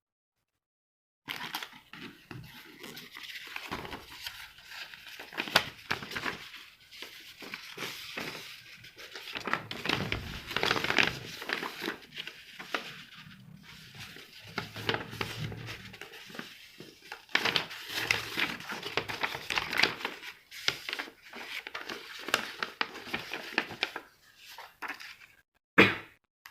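Packaging being handled and opened by hand: irregular crinkling, crackling and tearing of plastic and cardboard, starting suddenly about a second in, with a sharp crackle near the end.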